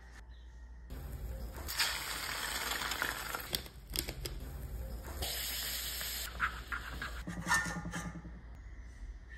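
Egg-in-a-hole toast frying in a pan: a steady sizzle of egg and bread in hot fat, with a few light clicks and a short scrape near the end.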